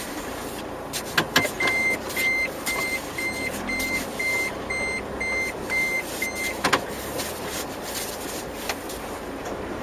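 Car's reversing warning beeps, an even run of high beeps about two and a half a second, sounding over the car's running noise while it backs into a parking space. A knock comes just before the beeps start, and they stop with a clunk a little past halfway, as the car is taken out of reverse.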